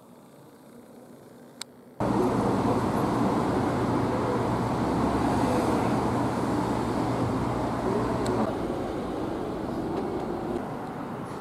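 Low room tone for about two seconds, then a sudden cut to loud, steady city traffic noise with a low hum; the hum stops about eight seconds in and the traffic noise eases off.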